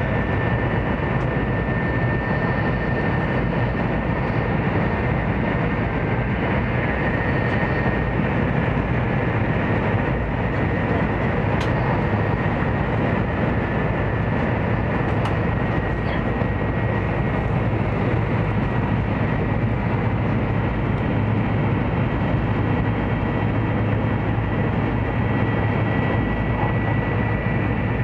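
Steady running noise inside the passenger cabin of a Taiwan High Speed Rail 700T train at speed: an even low rumble and rush, with a faint high tone above it. Two brief clicks come partway through.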